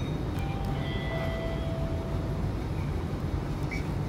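Inside a Hiroden 5100-series Green Mover Max low-floor tram (car 5108): a steady low rumble, with a few short high tones and faint clicks in the first half.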